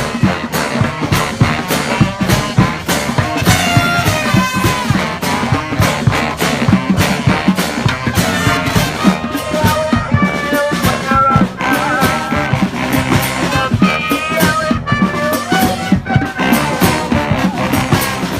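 Live street brass band playing: horns carrying a melody over a busy, steady drum beat.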